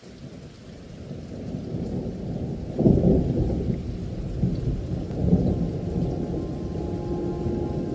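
Low rumble of thunder in a heavy rainstorm, fading in and swelling loudest about three seconds in.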